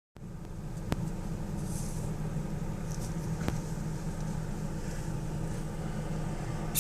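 A steady low hum, with a faint click about a second in and another about three and a half seconds in.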